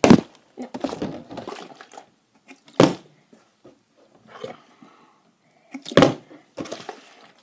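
Partly filled plastic water bottle thudding down on a table as it is flipped, three sharp knocks about three seconds apart.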